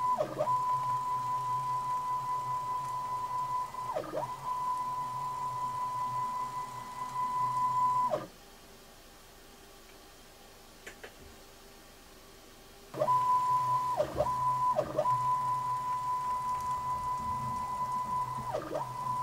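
Stepper motor of a DIY CNC Z axis driving its RM1605 ball screw: a steady high whine that briefly drops in pitch and climbs back each time the carriage slows and reverses, several times. It stops about eight seconds in and starts again some five seconds later.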